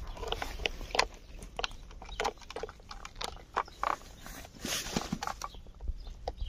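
A cat chewing and smacking on food: a run of short, irregular clicks and smacks.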